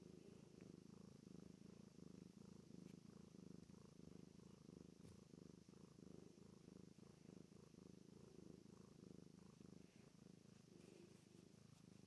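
Grey tabby cat purring steadily and faintly while being stroked on the cheek.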